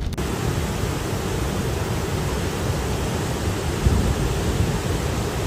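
Fast-flowing floodwater rushing past, a steady, even noise of churning water.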